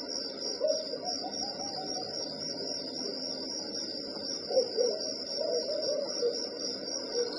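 Crickets chirping in a steady, high chorus, with a few lower, louder calls about a second in and again from about four and a half seconds on.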